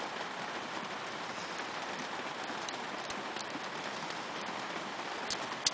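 Faint clicks of .22 Short rimfire cartridges being pressed one at a time into a small pistol magazine, over a steady hiss, with a sharper click near the end.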